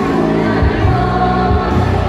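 A female vocal group sings together into handheld microphones, amplified through a PA over accompanying music with a steady low beat.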